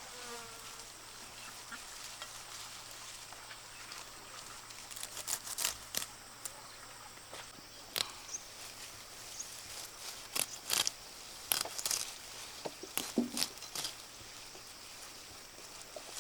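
Crisp snapping and rustling of vegetable stems being cut by hand, in a scatter of short, sharp snaps through the middle of the stretch, over a steady high insect drone.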